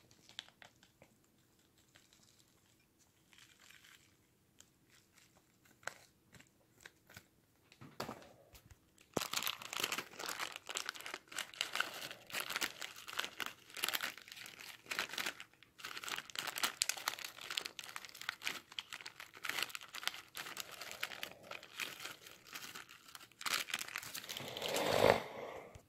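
Plastic bag of croutons crinkling as croutons are shaken out onto a bowl of salad: a dense crackle starting about nine seconds in, loudest in a burst near the end. Before it there are only a few faint clicks.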